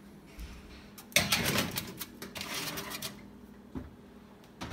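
A foil-lined metal baking sheet slid onto an oven's wire rack: a run of metallic clatter and scraping for about two seconds, then a couple of single light knocks.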